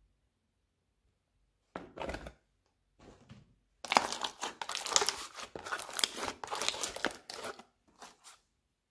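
Slime being pressed and squeezed by hand in a plastic tub: a couple of short squishes, then about three and a half seconds of dense crackling and popping, and a few last squishes near the end.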